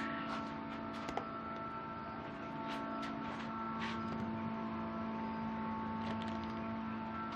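Steady electrical hum with a few higher steady tones over it and scattered faint clicks.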